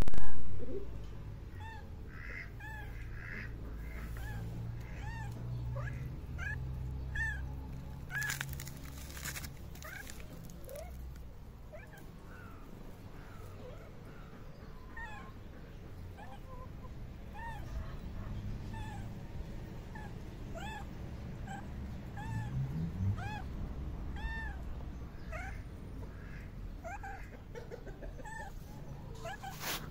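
Cat mewing over and over: many short, high mews that rise and fall in pitch, every second or so. A loud thump comes at the very start.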